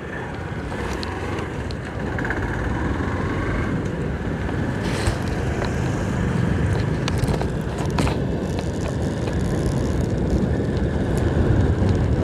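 Motorcycle engine running as the bike pulls away and picks up speed, with wind noise on the microphone; the sound grows steadily louder, with a few brief clicks partway through.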